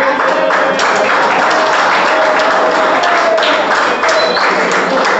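A roomful of people clapping their hands in applause, with voices calling out over it.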